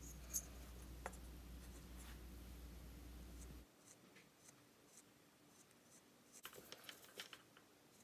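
Faint, scattered scratching of a woodburning pen's tip drawing short feather lines into a carved wooden bird, over near silence. A low background hum cuts off a little before halfway.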